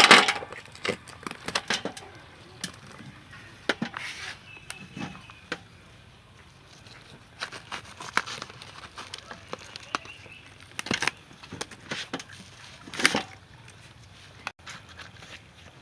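Knife slicing cooked, tender cow head meat into pieces, heard as irregular clicks and knocks. The loudest come right at the start and about 13 seconds in.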